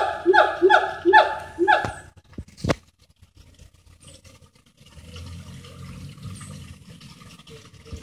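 Siamang gibbons singing: a run of loud, evenly spaced calls, two or three a second, each dropping in pitch, that stops about two seconds in. A single sharp knock follows, then only a faint low rumble.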